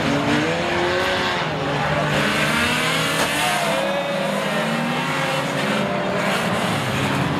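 Several unlimited banger racing cars' engines revving and running at once, their pitch rising and falling over the steady noise of the race.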